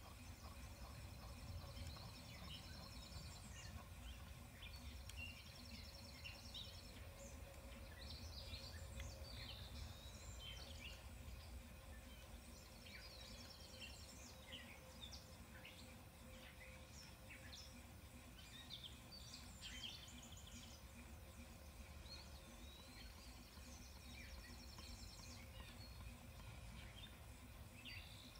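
Quiet outdoor ambience: small birds chirping and trilling again and again over a low, steady rumble.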